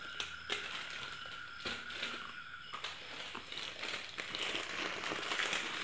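Plastic instant-noodle packets and seasoning sachets crinkling and crackling as they are handled, with scattered small clicks.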